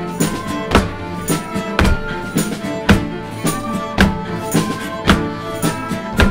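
Live acoustic folk band playing: strummed acoustic guitar and flute over a steady drum beat of about two strokes a second.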